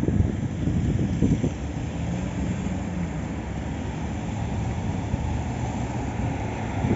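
Steady low rumble of city traffic, with wind buffeting the microphone in the first second and a half.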